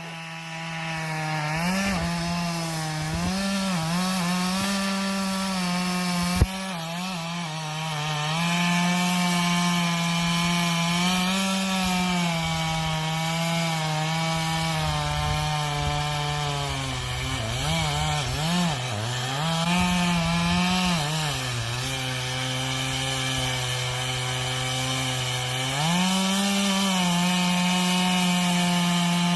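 Chainsaw running at high revs while cutting into a large tree trunk, its engine note sagging and recovering several times as the chain bites into the wood. One sharp knock about six seconds in.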